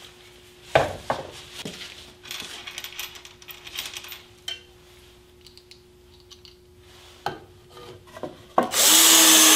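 Knocks and rubbing of wood against aluminium as a sacrificial fence board is handled and slid into place on bracket clamps, over a faint steady hum. Near the end, a cordless drill-driver whirs as it drives a screw.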